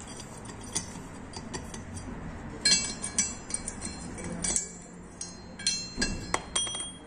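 Light metallic clinks and taps from bare steering knuckles being handled. They come at irregular intervals, some ringing briefly; the loudest fall about three seconds in and again near the end.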